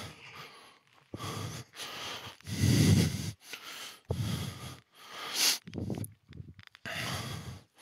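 A man breathing heavily and audibly, about seven breaths in quick succession, some louder than others.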